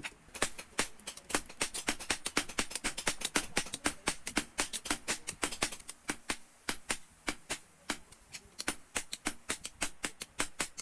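Rapid, irregular hammer blows on an anvil, several a second, forging spring steel into a knife blank.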